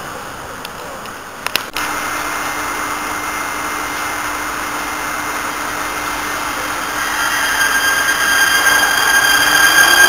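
Prague metro M1 electric train moving along an underground station platform: a steady rushing noise, with a whine of several high steady tones that sets in past the middle and grows louder toward the end.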